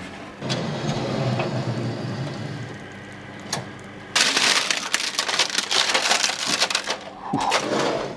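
Baking paper crinkling and rustling loudly from about four seconds in, as a hot glass lasagne dish is gripped with oven mitts and slid out over the oven rack. A low hum runs underneath in the first seconds.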